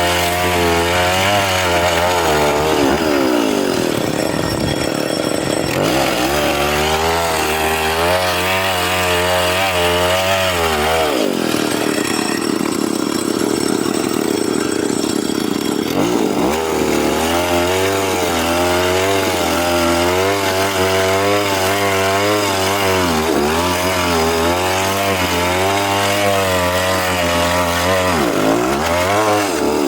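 Chainsaw cutting wood, its engine running continuously with the pitch rising and falling as the chain bites and frees, and two spells of higher, steadier revving, one briefly a few seconds in and a longer one near the middle.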